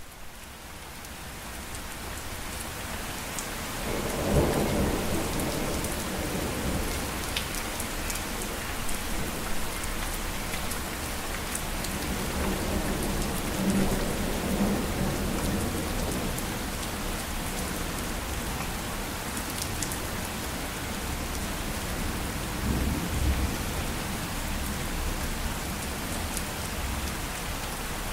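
Steady heavy rain fading in, with low rolling thunder rumbling in several long swells.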